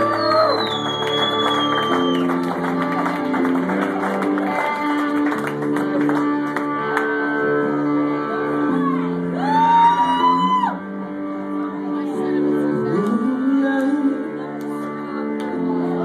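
Live blues-rock band playing: electric guitar, bass and drums, with sustained chords that change every second or two and a loud, bending high note about ten seconds in.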